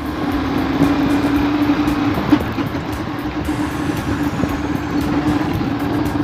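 Motorcycle engine running steadily while riding at low speed, a constant even hum under wind and road noise on the microphone.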